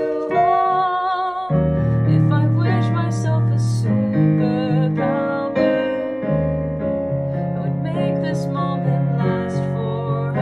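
Electronic keyboard played with a piano voice, chords and a melody line of a slow song, with deep bass notes coming in about a second and a half in.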